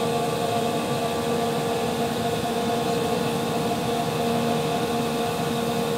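Machine-driven rice husk blower running steadily, a constant mechanical hum with a few steady tones, as husks stream through the delivery pipe into a boat's hold.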